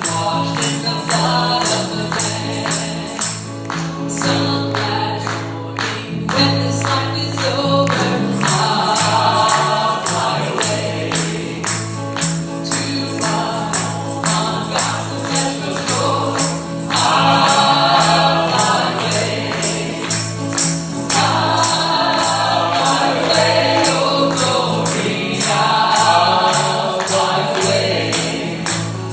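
Gospel music between sung verses: a bass line under a steady beat of about two strokes a second, with a melody swelling in and out over it.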